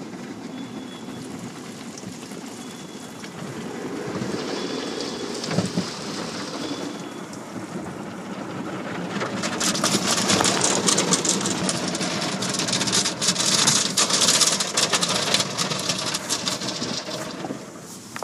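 Automatic car wash heard from inside the car: water and spray jets pelting the body and windows, swelling to a loud hissing spray about nine seconds in and easing off near the end. A short high beep repeats every second or two during the first several seconds.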